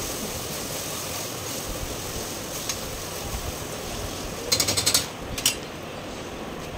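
Onions and ginger-garlic paste frying in hot oil in a pressure cooker, a steady sizzling hiss. About four and a half seconds in comes a quick rattle of clicks, then one more click half a second later.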